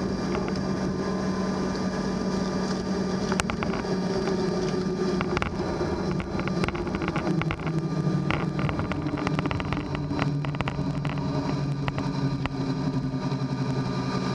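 Cabin noise of a CRJ-200 regional jet decelerating on the runway after landing: a steady rumble from its rear-mounted GE CF34 turbofans and the airflow, with an engine hum that drops in pitch about halfway through as the jet slows. Scattered rattles and knocks from the cabin as it rolls over the runway.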